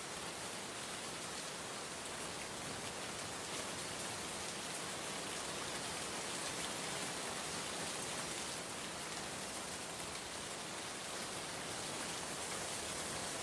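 Steady hiss of rain, heard from inside a car moving along a wet road.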